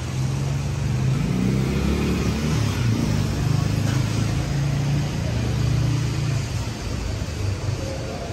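A vehicle's engine running with a low drone whose pitch shifts up and down.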